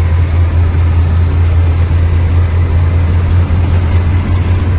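Heavy truck's diesel engine droning steadily under about 40 tonnes of load, with road noise, heard from inside the cab.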